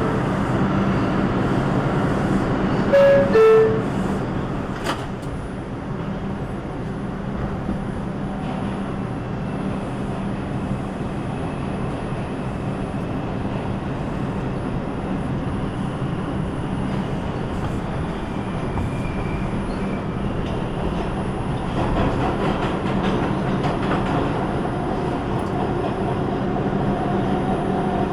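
New York City subway train: a two-note descending door chime sounds about three seconds in as the doors close, then the train runs with a steady rumble and hum, a motor whine coming in near the end.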